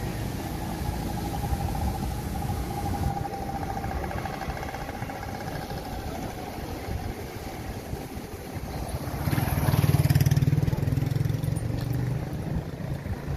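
City street traffic, with one motor vehicle passing close and loud about nine to eleven seconds in before fading off.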